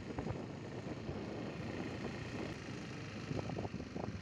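Motor scooter running at low speed with wind buffeting the microphone, and a few brief crackles near the end.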